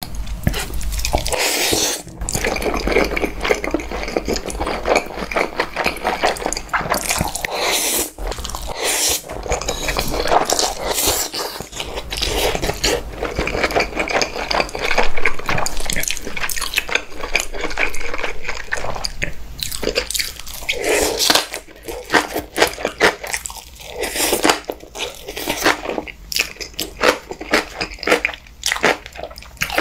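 Wet eating sounds of black-bean-sauce noodles (jjajangmyeon): slurping and chewing with crunchy bites. The sounds come thick and continuous at first and turn into more spaced-out, separate chews about two-thirds of the way in.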